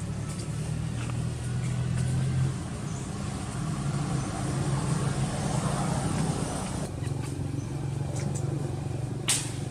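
A motor engine running steadily with a low hum. There is a single sharp click near the end.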